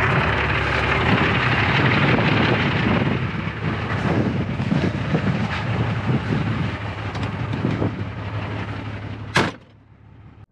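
Mercedes-Benz Unimog U1700L truck's diesel engine running as it drives along a dirt track, heard from inside the cab with scattered small knocks and rattles. About nine seconds in there is a single sharp click, and the sound then drops away to a faint hum.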